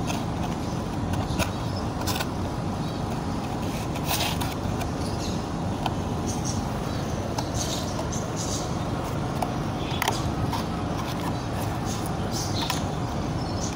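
Steady low background rumble like distant traffic, with scattered soft clicks and plastic crinkles as soil is pressed down around seedlings in cut plastic bottles.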